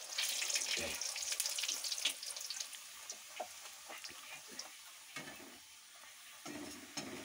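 Puris sizzling as they deep-fry in hot oil in a kadai, pressed and turned with a slotted spoon. The crackling sizzle is strongest for the first couple of seconds, then dies down.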